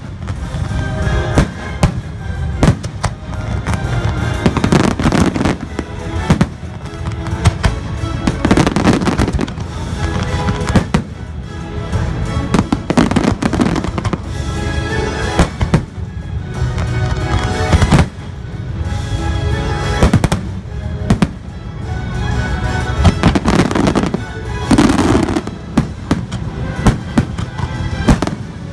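A fireworks display: many sharp reports of shells and comets launching and bursting in quick succession. Under them runs the show's orchestral soundtrack, played over loudspeakers.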